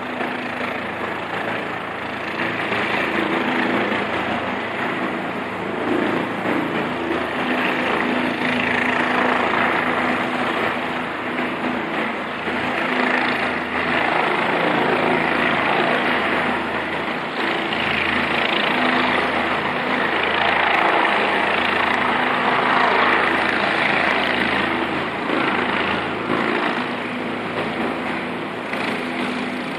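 Helicopter flying close by, its rotor and engine running steadily and loudly, the noise slowly swelling and easing as it moves.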